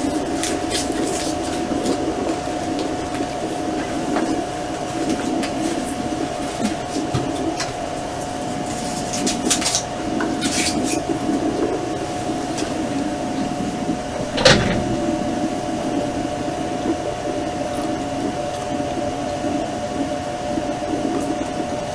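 A package of honeybees buzzing in a steady, dense hum. Scattered clicks and scrapes come from the wooden package box being handled, with one sharp knock about two-thirds of the way through.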